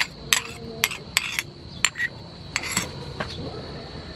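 A series of sharp clinks of a bowl and utensils against a frying pan, over the steady bubbling of prawns cooking in sauce.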